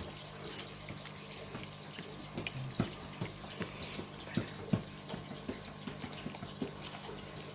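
Scattered light clicks and taps of small plastic containers being handled, irregular and a few each second, over a steady low hum.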